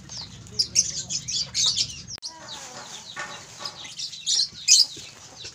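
Caged lovebirds chattering in many quick, high-pitched chirps, with some lower calls in the middle.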